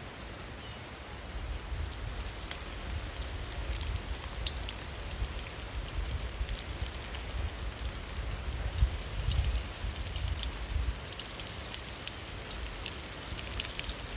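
Spiced breadfruit slices shallow-frying on a pan, oil sizzling with a steady hiss and scattered small crackles, over a low rumble.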